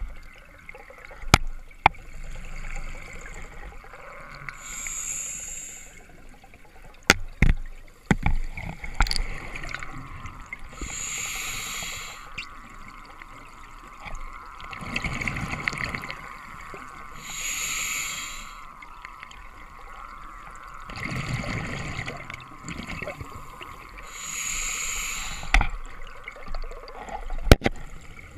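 Open-circuit scuba regulator heard underwater: a hissing inhalation about every six to seven seconds, with rumbling bursts of exhaled bubbles between, and a few sharp knocks of gear.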